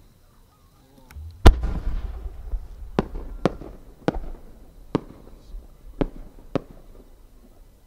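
A 10-go (30 cm) shakudama firework shell fires from its mortar with one loud boom about one and a half seconds in. It is followed by six sharp cracks, spaced about half a second to a second apart, as the small bursts attached to the shell go off during its climb.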